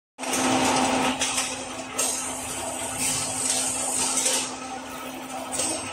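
Chain log elevator of a veneer peeling machine running, its electric motor humming steadily and the chains rattling as it carries a log up, with a couple of knocks.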